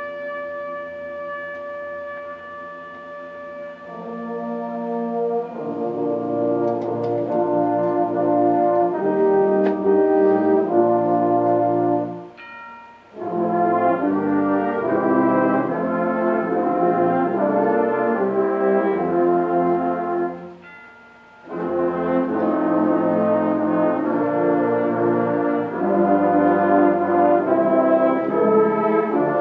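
Symphonic concert band playing sustained chords with the brass section prominent, building from a softer opening to full, loud playing, with two brief pauses between phrases.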